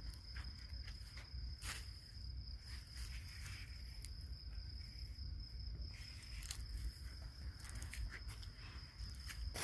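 A cricket trilling: one steady, unbroken high-pitched tone, with rustling and a few soft clicks and knocks around it.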